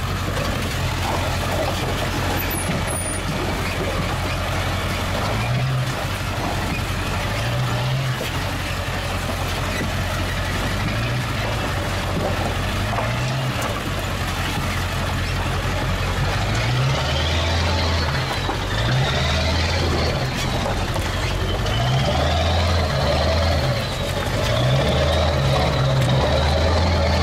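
Pickup truck with a slide-in camper driving slowly over a rocky, wet dirt track: a low engine drone that steps up and down with the throttle, over a constant rough noise of tyres on stones. A high whine wavers up and down over the last ten seconds.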